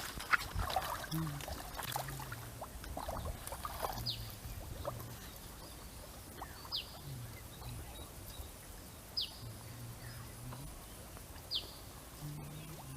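A bird repeats a short, high, falling call about every two and a half seconds. In the first few seconds there are splashes and knocks in the water, and a low hum comes and goes.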